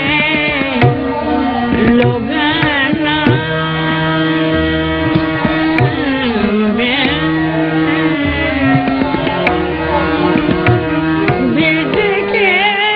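Live Hindustani light-classical music: tabla strokes under sustained held notes, with ornamented, wavering melodic phrases rising above them several times.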